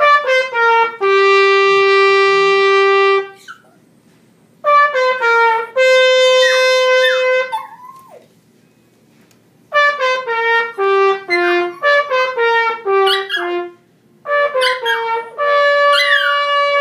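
Trumpet playing four phrases of notes with short pauses between them, one of them a long held note. A small dog howls along, its voice sliding over the notes in a few places.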